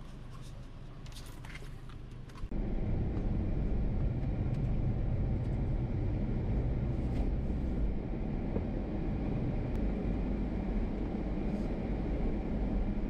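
A few faint clicks and rustles in a quiet van interior. About two and a half seconds in, a steady loud low rumble of a Toyota HiAce camper van driving starts abruptly, engine and road noise together.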